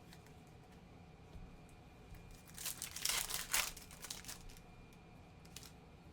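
A foil trading-card pack wrapper being torn open and crinkled, a crackly rustle lasting about a second and a half in the middle.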